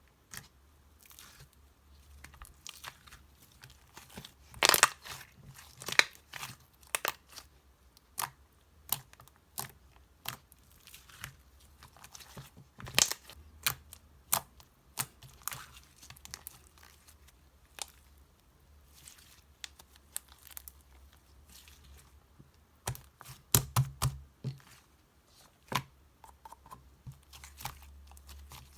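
White slime base being kneaded and squished by hand with clay mixed in, making irregular sticky clicks, pops and crackles, some much louder than others.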